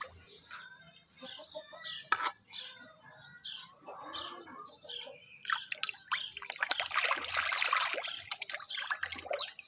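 Feeding fish splashing and churning at the pond surface, scattered drips and splashes at first. The splashing turns busy and continuous from about five and a half seconds in, then eases near the end.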